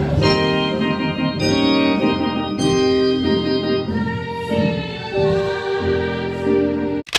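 Music with held organ-like keyboard chords that change every second or so, possibly with singing. It breaks off abruptly near the end, and a brief loud burst of noise follows.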